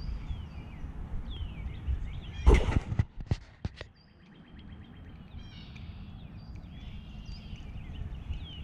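Songbirds chirping and calling over a steady low rumble. About two and a half seconds in comes a loud scrape and then several sharp clicks, as a hand knocks against and handles the body-worn camera.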